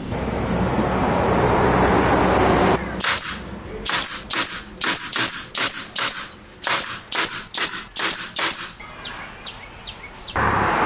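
Pneumatic brad nailer firing about fifteen sharp shots in quick, uneven succession as nails are driven into MDF panels. A steady loud rushing noise fills the first few seconds and starts again near the end.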